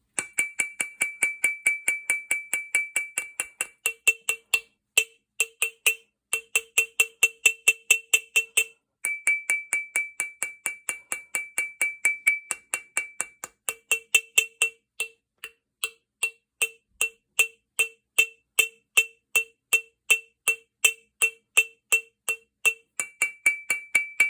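Rapid, steady tapping of a nylon/PTFE-faced Wheeler hammer on a gun's steel action, about three to four strikes a second, each with a bright metallic ring. The percussive vibration is meant to work rust loose so that a seized, burred plate screw can be freed.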